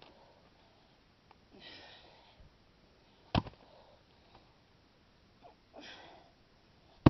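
A person breathing hard while exercising, with two forceful exhales and sharp thumps about every three and a half seconds.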